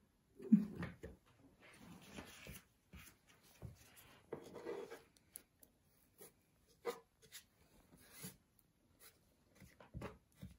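Hands working with small craft pieces in a wooden tray: a knock about half a second in, stretches of light rubbing and scraping, and a few sharp clicks and taps.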